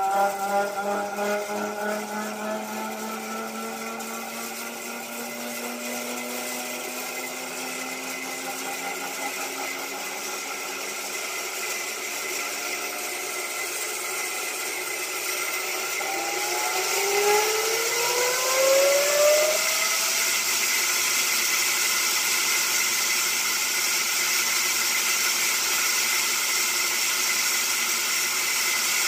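Large belt-driven band saw mill running. Its hum slowly drops in pitch at first. About two thirds of the way through, a whine rises twice. It then settles into a louder, steady running noise with a hiss.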